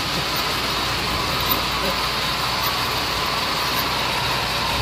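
Steady, even running noise of machinery with a low hum under it, like a motor or engine running at a constant speed, with no strikes or changes.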